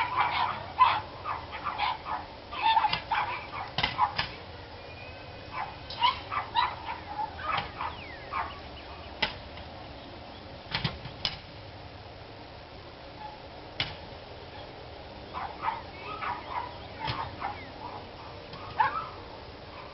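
Dogs barking in fast runs of short sharp barks, with a few lone barks in the pauses between runs. This is nuisance barking that keeps going.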